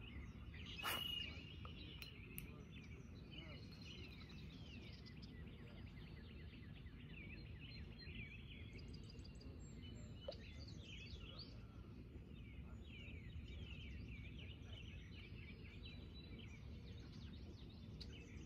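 Many small birds chirping and calling continuously, faint, over a low steady rumble of outdoor background noise. A brief louder sound comes about a second in.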